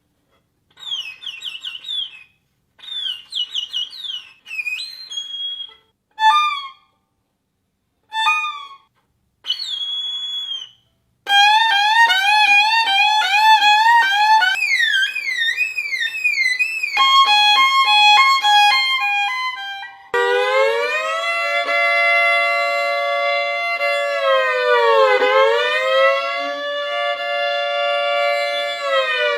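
Violin played for sound effects. It starts with short, high, sliding chirps in separate bursts. About 11 s in it switches to continuous rapid swoops up and down in pitch, and from about 20 s it holds a long two-note tone that slides down and back up midway.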